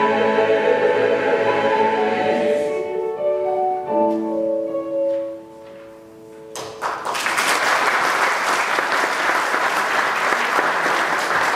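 Mixed choir singing the closing phrase of a hymn, thinning to a few soft held notes that fade away. About seven seconds in, the audience bursts into applause that keeps going.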